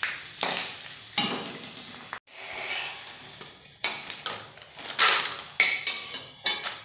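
Dried potato chips frying in hot oil in a kadhai, the oil sizzling while a slotted metal spoon stirs them, scraping and knocking against the pan several times, then lifting them out.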